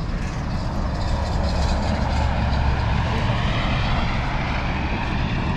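An engine running steadily with a deep rumble, its pitch rising slowly over the first few seconds.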